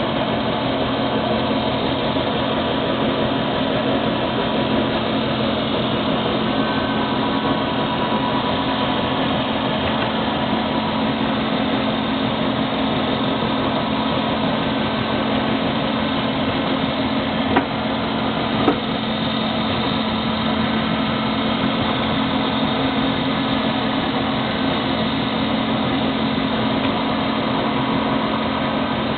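Servo-controlled twin-spindle special-purpose drilling machine running with a steady motor hum. Two sharp clicks about a second apart come a little past the middle.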